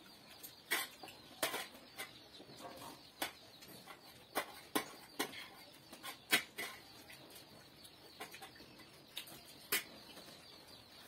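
Scattered sharp clinks and taps of a spoon and fingers against metal dinner plates during a meal, with light scraping between them.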